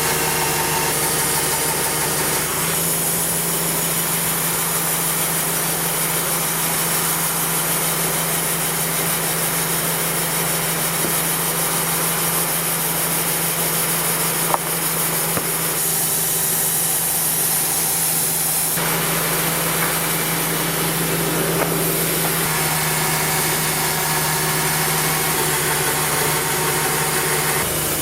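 Portable sawmill's engine running at a steady speed, its note changing abruptly a few times, with a couple of sharp ticks.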